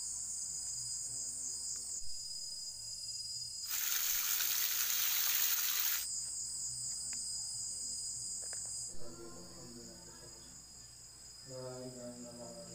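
Insects in tropical forest chirring in a high-pitched, rapidly pulsing drone. About four seconds in, a louder, fuller hiss swells up for about two seconds and then drops back.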